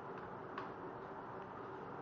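A few light clicks, the clearest about half a second in, over a steady background hum.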